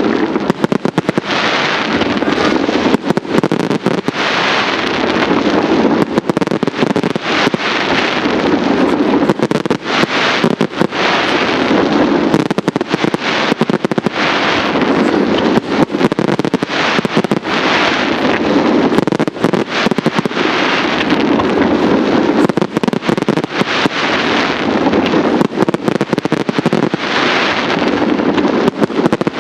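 Fireworks display: aerial shells bursting one after another, many reports close together with no real break.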